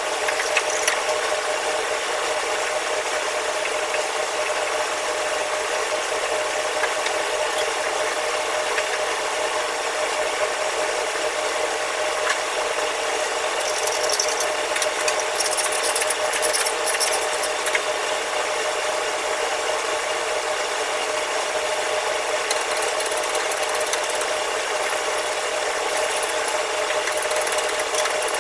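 Hand scrubbing and scraping on the metal burner of a commercial wok range, in scratchy bursts about halfway through and again near the end. Under it, a steady machine drone with a constant hum continues throughout.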